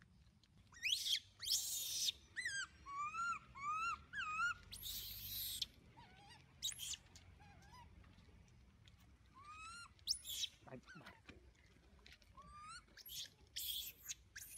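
Baby long-tailed macaque crying. It gives a run of short whimpering coos that rise and fall in pitch, broken by harsh screeches of about a second each, two near the start, one in the middle and two near the end.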